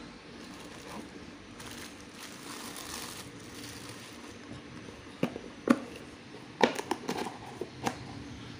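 Plastic bag around a new baitcasting reel crinkling as the reel is unwrapped, then a handful of sharp clicks and knocks in the second half as the reel and box are handled; the knocks are the loudest sounds.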